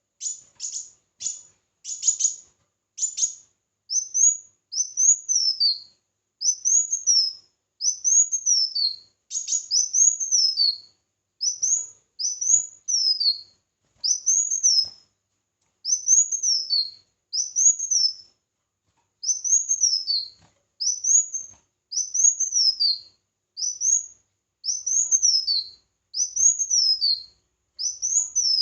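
A small songbird sings high-pitched notes: a few quick downward-sweeping notes at first, then a long, even series of short arched notes, each rising and then falling, about one a second.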